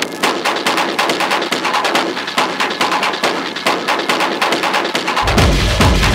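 Industrial techno on a club sound system, with the bass and kick drum cut out so that only rapid percussive hits and mid and high sounds are left. The heavy low end drops back in about five seconds in.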